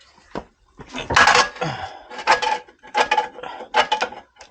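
Metal-on-metal knocks with a brief ringing, in about four spaced clusters, as a new CV axle is knocked home to seat it on a Range Rover L322.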